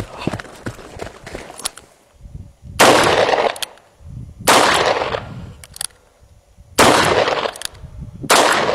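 Four shots from a Llama Comanche III .357 Magnum revolver, fired at a steady pace about one and a half to two seconds apart. Each blast trails off over most of a second.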